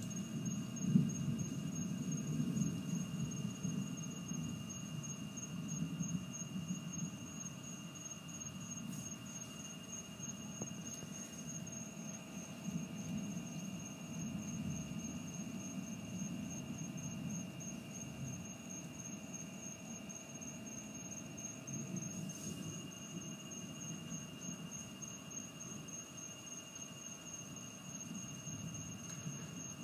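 Night insects trilling in steady high-pitched tones, with a few lower steady tones, over a low, uneven rumbling noise.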